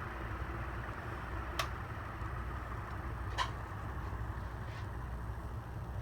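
36-inch Montgomery Ward industrial ceiling fan running, a steady low motor hum with the whoosh of air from its metal blades, and two faint clicks about one and a half and three and a half seconds in.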